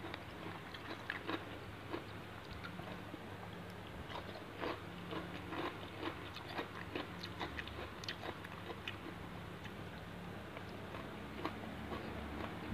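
A person chewing and biting raw shrimp marinated in fish sauce (kung chae nam pla), with many short, irregular wet clicks and smacks, over a low steady hum.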